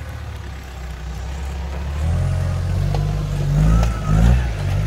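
Mitsubishi Pajero MKII's 2.8-litre intercooled turbodiesel engine pulling under load on a steep climb, getting louder about two seconds in, then revving up and down.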